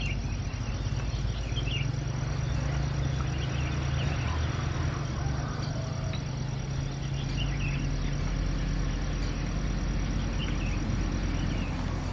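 Outdoor ambience: insects chirping faintly in scattered short calls over a steady low hum.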